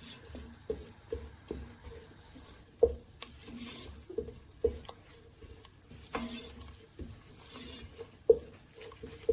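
A spoon stirring a butter-and-flour roux in a pan, knocking and scraping against the pan in an uneven run of light strokes, roughly two a second.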